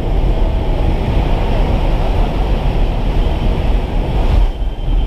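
Loud, steady rush of aircraft engine and wind noise inside a skydiving jump plane's cabin with the jump door open, with a brief swell and short dip near the end.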